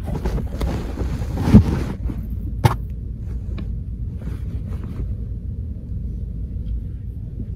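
Handling noise from a hidden phone camera being set in place by hand: rustling and scraping, a loud knock about a second and a half in, and a sharp click about a second later, over a steady low rumble.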